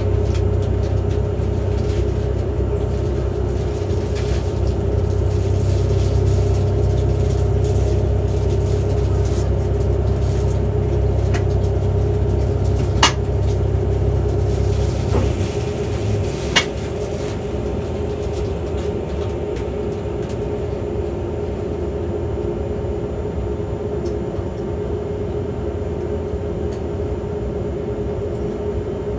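Steady hum of a stopped Kintetsu Urban Liner Plus express train's onboard equipment, heard from inside the car. A low rumble under the hum cuts off about halfway through, and there are two short clicks a few seconds apart.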